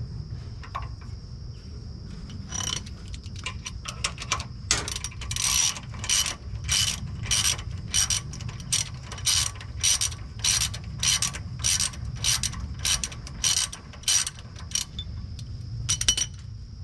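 A ratchet wrench clicks through repeated strokes, about two a second, turning the forcing screw of a gear puller to draw the timing gear off the crankshaft. The strokes start a few seconds in and stop about a second before the end, with a short final burst of clicks near the end.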